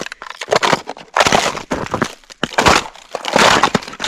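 Thin ice crunching and cracking under boots fitted with Kahtoola MICROspikes, about four footsteps that break the ice sheet with a sound like shattering glass.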